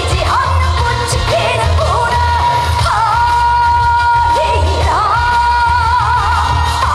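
A woman singing a trot song live over a band backing track with a steady bass beat, holding long notes that waver into vibrato at their ends.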